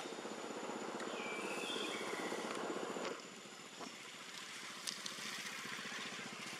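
A motor engine running with an even pulsing rumble, which drops away abruptly about three seconds in, leaving quieter outdoor ambience with a few faint clicks.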